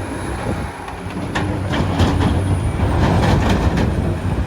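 Large vehicle engine running steadily with a low, even sound, with a few faint clicks through the middle.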